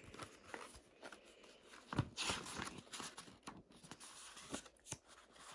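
Pages of a paperback picture book being handled and turned: soft paper rustling with scattered light taps and clicks, the sharpest a knock about two seconds in.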